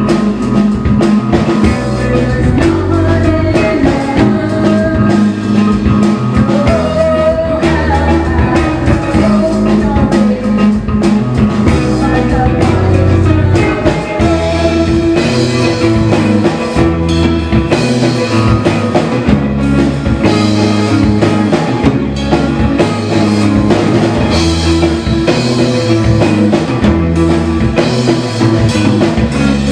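Live rock band playing loud: a man singing over electric guitars and drums, with the voice dropping out for instrumental playing in the second half.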